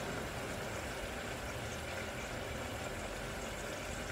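Gas burner and a pot of beef simmering on low heat: a steady low hum and hiss with no distinct sizzles or knocks.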